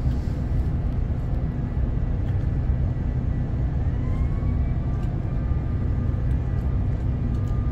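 Ship's machinery running with a steady low drone. A faint rising whine comes in about four seconds in and then holds.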